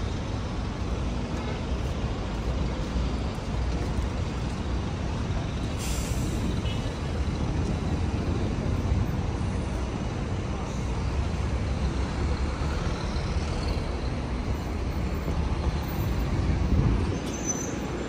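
Street traffic: a steady low rumble of passing vehicles, with one short sharp hiss about six seconds in and the rumble swelling briefly near the end.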